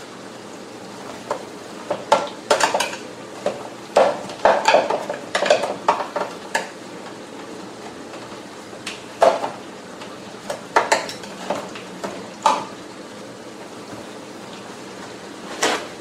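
Metal table knife wrapped in paper towel scraping and clicking against the grooves of a Shark vacuum's plastic dust container. Irregular clusters of short scrapes and clicks, with a quieter pause in the middle and one more near the end.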